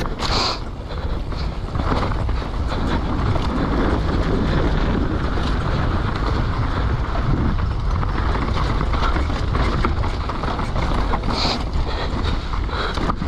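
Downhill mountain bike descending a rough trail at speed: wind buffeting the microphone over a steady rush of tyres on dirt, with frequent rattles and knocks from the bike over the bumps.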